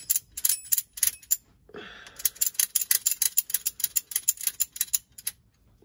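Ratchet strap buckle being worked by hand, its pawl clicking in quick runs: a short burst of clicks, then after a brief pause a longer run of about seven clicks a second.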